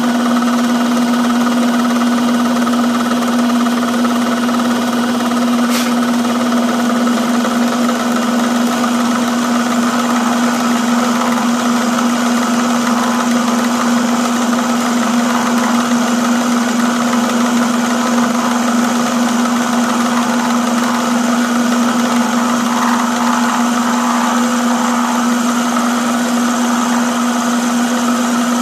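Metalworking machine tool running steadily under power with an even hum while it takes a cut on a metal part. A single light tick comes about six seconds in.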